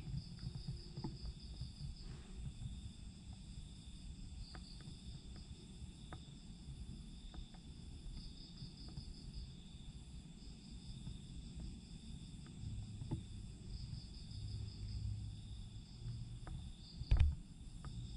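Crickets chirping in pulsing trills that come and go in phrases, over a faint low hum with scattered small ticks. One sharp knock near the end is the loudest sound.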